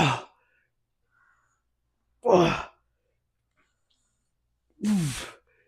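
A man's short, voiced exhalations of effort, one per lifting rep, three in all about two and a half seconds apart, each falling in pitch.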